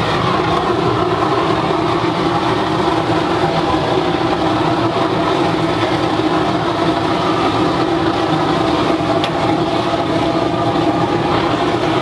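Waste oil burner firing steadily into a steel-drum furnace: a loud, even rushing rumble of the flame and air that holds unchanged throughout.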